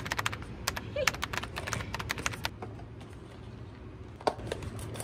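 A cardboard box being opened by hand: a quick, uneven run of light clicks and taps for about two and a half seconds, then two single knocks near the end.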